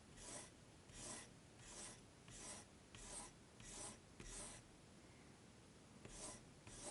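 Kaweco Sport mechanical pencil with 0.7 mm HB lead drawing lines on paper: a quiet scratch with each stroke, about one stroke every 0.7 seconds. The strokes pause for over a second just past the middle, then two more follow near the end.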